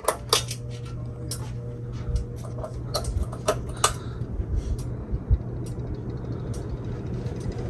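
Ceiling fan running with a steady low motor hum, with a quick run of sharp clicks and ticks over the first four seconds.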